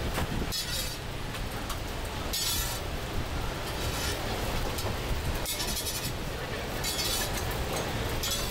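Cooking at a scallion pancake stall: a steady low rumble with short hissing scrapes every one to three seconds, typical of a metal spatula working a hot griddle.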